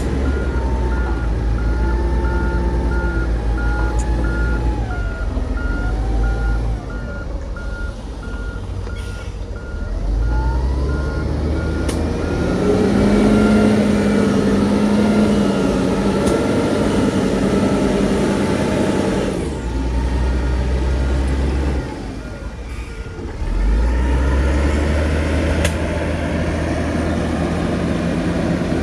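Heavy diesel earthmoving machinery running, with a reversing alarm beeping at an even pace. About twelve seconds in, the engine revs up under load and the beeping stops; it comes back for a few seconds around twenty seconds in.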